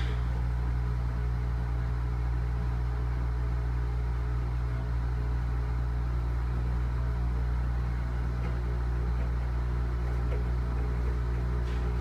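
General Electric front-loading washing machine running its wash, the drum turning and tumbling the load: a steady low motor hum.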